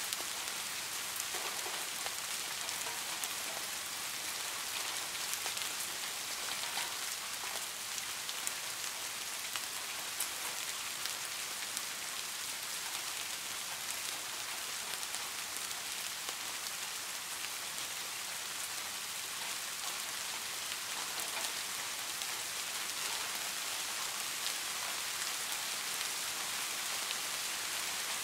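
Steady rain falling on a surface: an even hiss with small drop ticks scattered through it.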